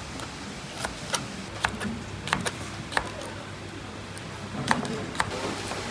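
Kitchen clatter: a dozen or so irregular sharp clicks and clinks, a few with a short ring, over a steady background hum.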